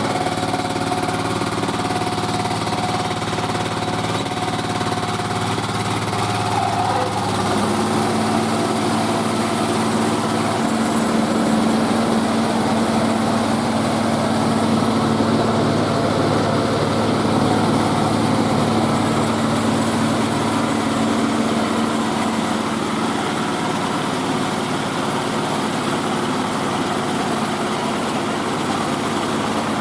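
Engine of a mobile rice milling machine running steadily. About seven seconds in, a higher steady hum joins it and lasts for most of the rest.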